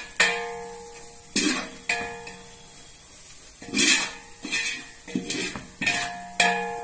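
A perforated steel skimmer stirring and scraping spice masala in a large metal cooking pot, knocking against its sides about eight times, each knock leaving the pot ringing briefly.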